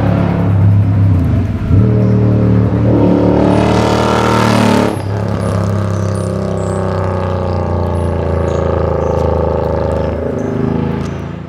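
2009 Suzuki Boulevard C50's 805 cc V-twin running and revving through an aftermarket exhaust, its pitch rising and falling, with a sudden drop in level about five seconds in, then fading out near the end.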